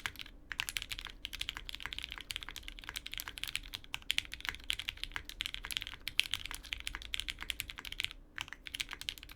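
Fast typing on a custom tenkeyless mechanical keyboard with lubed Cherry Hyperglide MX Black linear switches in an O-ring-mounted POM half-plate, under GMK keycaps: a dense, steady stream of key clacks, broken by a short pause about eight seconds in.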